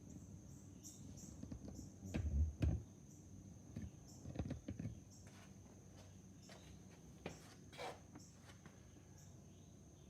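Quarter-inch deflecting beam torque wrench worked on a torque tester: a few knocks about two seconds in and again near four and a half seconds, then short sharp clicks later, as the wrench is loaded until its pin pops out. A faint steady high-pitched tone runs underneath.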